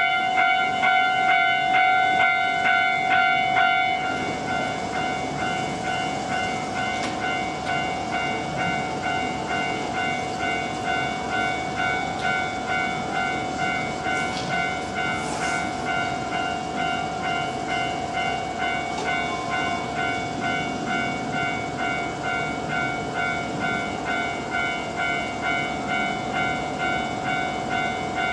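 Japanese level-crossing warning bell ringing its steady, repeating electronic chime, louder for the first four seconds. Under it the Hokutosei sleeper train rolls past with a continuous rumble, pushed empty by its locomotive, and its wheels click over the rail joints near the start.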